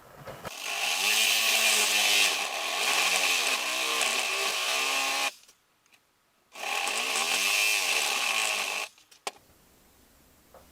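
Handheld electric power tool run twice, a long burst and then a shorter one after a brief pause. The motor's pitch dips and recovers as it works into the wood under load.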